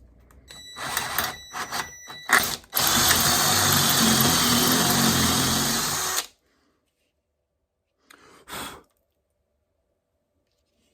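Electric drill with a 5/16 in bit drilling out a broken-bolt hole for tapping to a larger size. It starts in a few short trigger blips, runs steadily for about three and a half seconds, stops, then gives one brief burst near the end.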